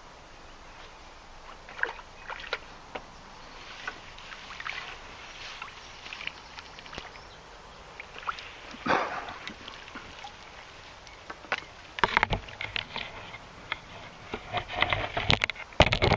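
Small splashes and sloshing of river water at the surface, with a larger splash about nine seconds in and a busier run of splashing and knocks near the end.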